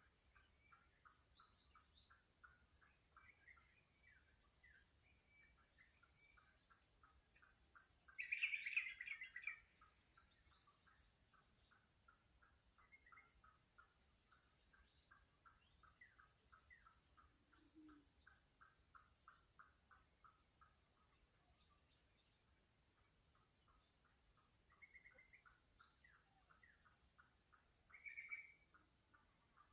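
Faint, steady insect chirping, a regular train of short pulses a few times a second over a high continuous hum of insects. There is a brief, louder call about eight seconds in and a shorter one near the end.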